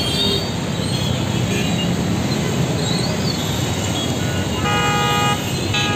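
Traffic noise from a dense road jam: a steady rumble of engines and tyres, with vehicle horns honking and one horn held for under a second about five seconds in.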